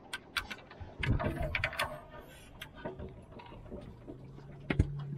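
Clicks, rattles and knocks of hands handling gear and the latch of a plastic ice-box cooler lid, with one sharp knock near the end as the lid is worked open.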